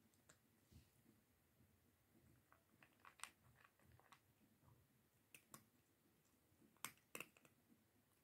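Cat eating dry kibble from a plastic bowl: faint, irregular crunches and clicks, with a few louder ones in the middle and about two thirds of the way through.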